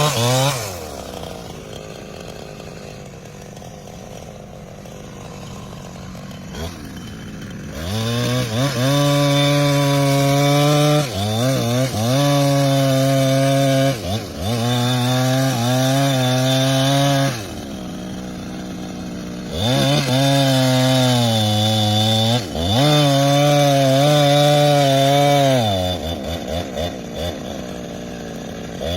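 Two-stroke chainsaw idling, then revved to full throttle in several runs of a few seconds each, dropping back to idle between them, with an uneven, fluttering idle near the end.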